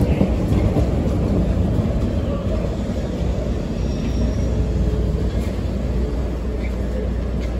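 CTA rapid-transit train pulling along the platform and slowing to a stop: a steady low rumble of wheels and motors that eases off gradually.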